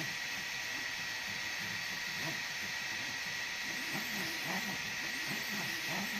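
EasyThreed K10 mini 3D printer running a print: a steady hiss with a high whine, under the stepper motors' short rising and falling tones as the print head moves back and forth.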